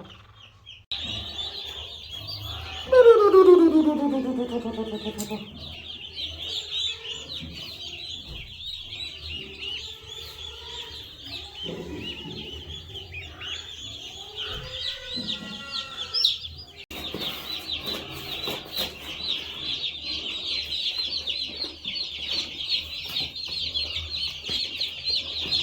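A flock of day-old broiler chicks and turkey poults peeping constantly, a dense chorus of short high chirps. About three seconds in, a loud falling tone lasting about two seconds sounds over them.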